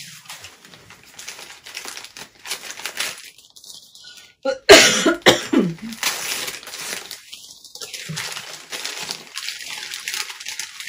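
Tissue paper crinkling and rustling as a small wrapped figurine is unwrapped by hand, with one loud cough about four and a half seconds in.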